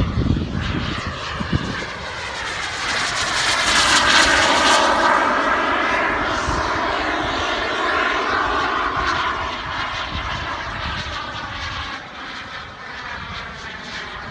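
Aircraft engine passing by in flight. Its pitched drone swells to a peak about four seconds in, bends in pitch as it passes, then fades away.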